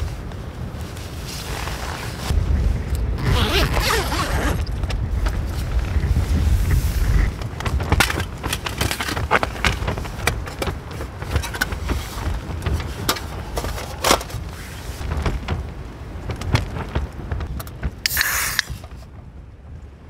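Strong wind buffeting a Hilleberg Soulo tent with a low rumble, with rustles and clicks of a backpack and gear being handled inside. About two seconds before the end, a drink can is cracked open with a short hiss.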